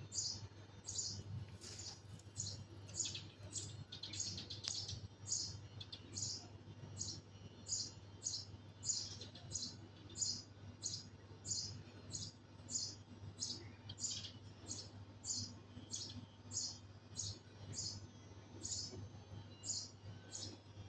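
Eurasian tree sparrow chirping over and over, short high chirps at a steady pace of about one and a half a second.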